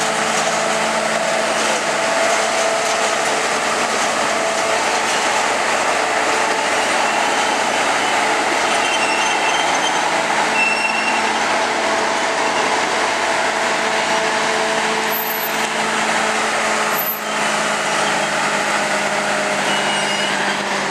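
Diesel cog railway locomotive's engine running steadily as it pushes a passenger coach slowly past, a constant loud drone with a steady hum.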